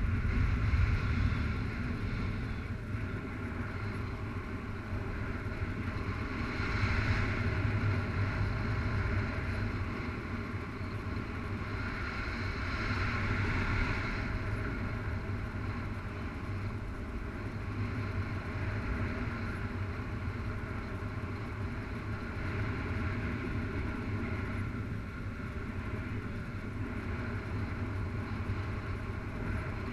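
Airflow rushing past the camera microphone in paraglider flight: a steady wind rumble with slow swells.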